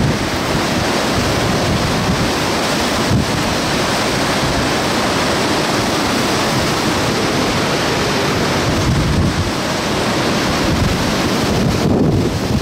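Hurricane-force wind and heavy, wind-driven rain in a loud, unbroken rush, with gusts buffeting the microphone.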